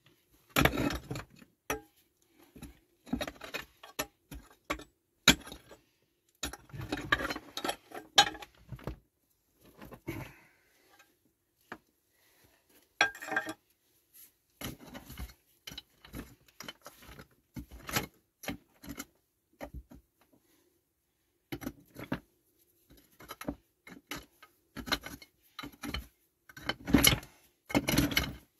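Small hand pick striking and prying at stone fill packed into a rock-cut shaft tomb: irregular knocks of metal on stone, some in quick clusters with short scrapes, and loose stones clattering.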